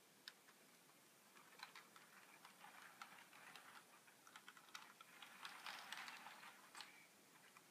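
Faint, irregular ticks and clicks from HO scale model diesel locomotives running along the track, loudest about six seconds in.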